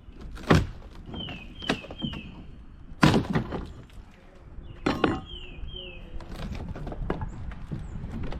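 Pry bar levering a wooden cap rail off a boat's bulwark against rusted galvanized screws: three loud sharp knocks and cracks with smaller knocks between them, and short high squeaks.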